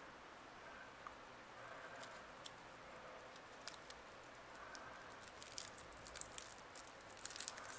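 Faint, scattered small ticks and light scratches of a thin metal pick working over the dry, brittle carcass of a dead wolf spider on paper, becoming more frequent near the end.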